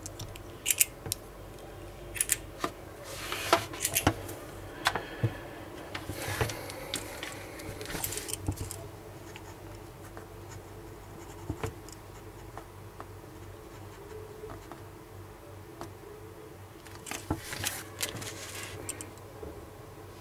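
Handling noise from a Parker Jotter retractable ballpoint pen and a sheet of paper: scattered sharp clicks and scratchy rustles, busiest in the first nine seconds. A quieter stretch follows, then another cluster of scratches and clicks near the end.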